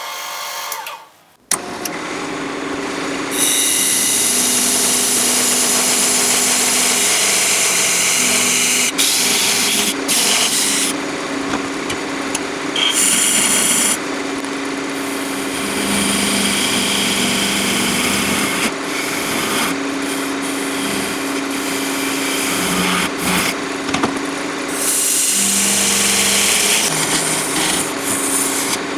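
Wood lathe running, with a steady motor hum, while a hand-held turning tool cuts the spinning apple wood blank: a loud hissing scrape that stops and starts as the tool is lifted and set back on the wood. The lathe's hum comes in about a second and a half in, and the cutting a couple of seconds later.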